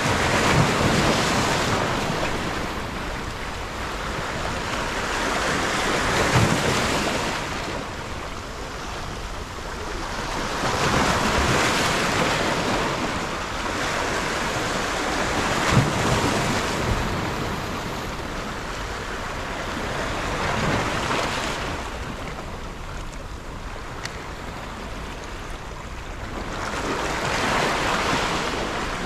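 Sea waves breaking and washing over shoreline rocks, swelling and ebbing about every five seconds, some swells with a dull thud as the water hits the rocks.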